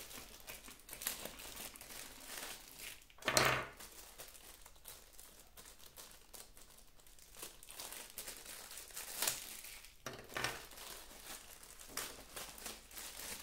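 Clear plastic bag crinkling and rustling as hands unwrap a small action-camera mount, in irregular bursts, loudest about three and a half seconds in.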